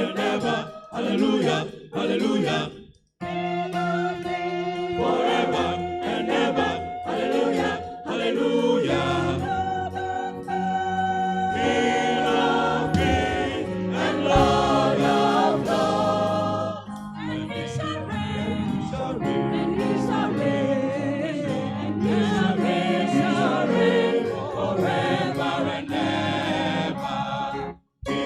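Choir singing a gospel hymn, with short breaks in the sound about three seconds in and just before the end.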